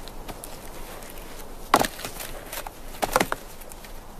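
Alpine ibex bucks sparring, their horns knocking together in sharp clacks: one loud clack just under two seconds in, then a quick run of three or four clacks about a second later.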